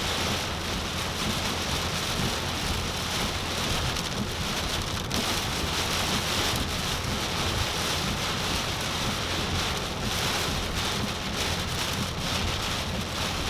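Extremely heavy tropical-storm rain pelting a car, heard from inside the cabin as a steady, even hiss over a constant low rumble.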